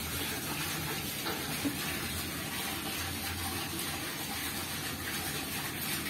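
Water running steadily, an even rushing noise that does not change.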